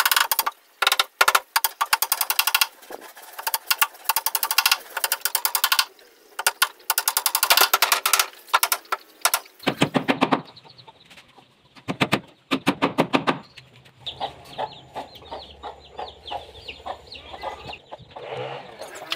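A hammer tapping on teak boards in quick runs of blows while the back panel of a wardrobe is fitted.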